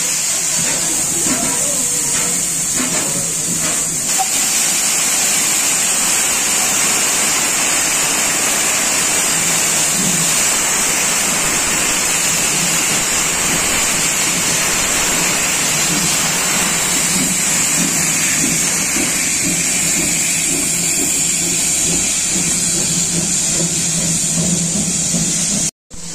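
Pt47-class steam locomotive standing with steam hissing steadily and loudly from around its front end and cylinders. The hiss cuts off abruptly near the end.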